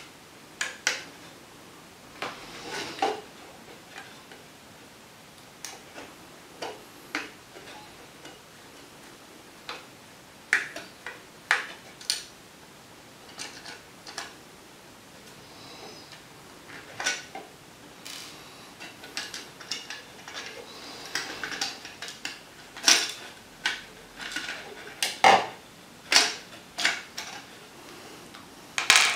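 Irregular small clicks, taps and light scrapes of a Bachmann Class 37 model locomotive's plastic body shell being handled while a small crosshead screwdriver undoes the fan support inside it. The clicks come in small clusters and grow busier and louder toward the end.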